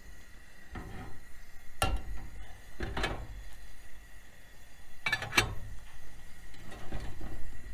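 Stainless steel canteen cups and a lid clinking and knocking against each other and the camp stove's grate as they are handled: about half a dozen separate metal strikes with short ringing, the loudest about two, three and five seconds in.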